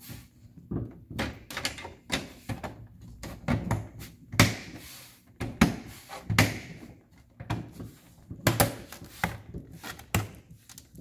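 Hard plastic panels of a toy castle playset knocking and clunking as a piece is worked and pushed into its slots until it snaps in: an irregular run of knocks, a few of them sharp and loud.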